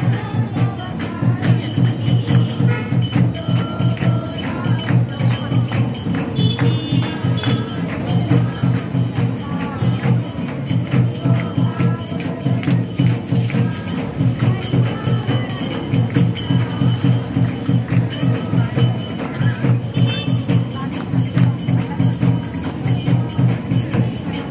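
Hindu devotional aarti music with a steady drumbeat of about two to three beats a second and jingling tambourine-like percussion throughout.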